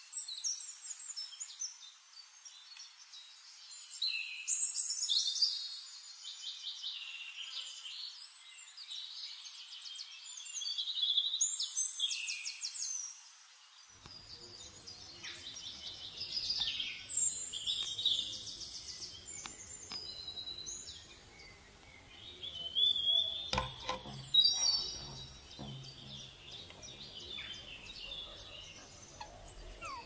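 Small birds singing: high-pitched chirps and trills in short, varied phrases, with a couple of sharp knocks about two-thirds of the way through.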